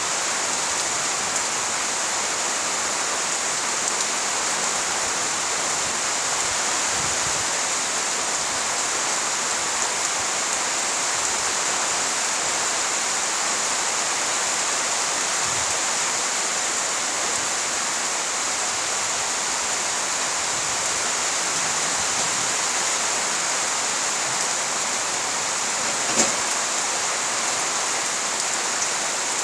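Steady rain falling, an even hiss that holds without change, with one short sharp click near the end.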